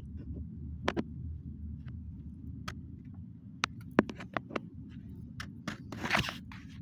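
Car cabin road noise, a steady low rumble, with irregular sharp clicks and taps from a phone being handled against the interior trim, and a brief rustle about six seconds in.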